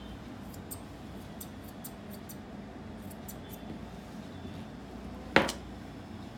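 Grooming shears snipping through a Maltese's leg coat: a run of light, crisp snips at irregular intervals. About five seconds in there is a single much louder knock.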